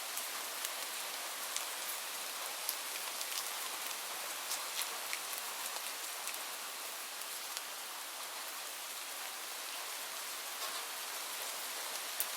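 Light rain falling steadily as an even hiss, with many separate drops ticking sharply on a hard surface.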